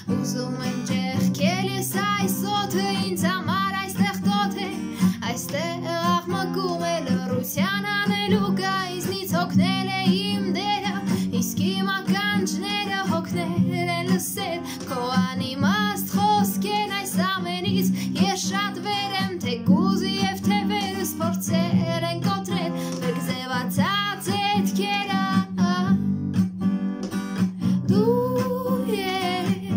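A woman singing in Armenian to her own strummed acoustic guitar, a Hohner, holding a long note near the end.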